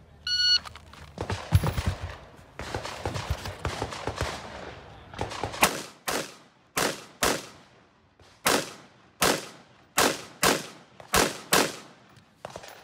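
Electronic shot-timer start beep, then semi-automatic rifle fire: a quick flurry of shots in the first few seconds, then about a dozen single shots at a steady pace of one or two a second, each with a short echo.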